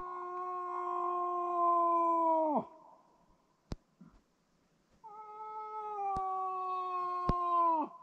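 Two long, drawn-out cow moose calls, each about three seconds, holding nearly steady in pitch and then breaking sharply downward at the end: a hunter calling to draw a moose in. A few sharp clicks fall in the gap between the calls and during the second one.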